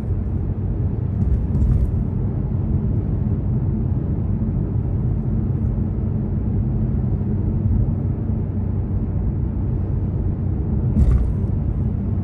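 A car driving at highway speed, with steady low road and engine rumble. A brief louder noise comes about eleven seconds in.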